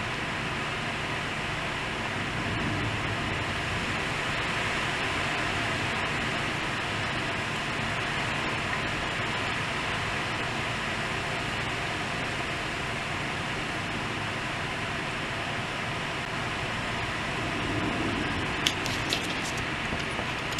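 Heavy rain pouring steadily in a severe thunderstorm, an even dense hiss. Near the end come two sharp clicks.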